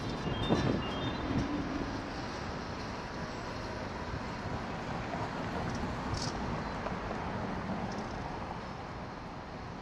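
Steady city street traffic noise, an even rumble and hiss with no single vehicle standing out. A short run of electronic beeps dies away within the first second.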